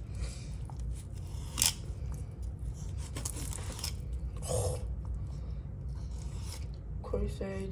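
Danco fillet knife slicing through a yellowtail snapper on a plastic cutting board, a few short scraping strokes as the blade works along the backbone and through the skin.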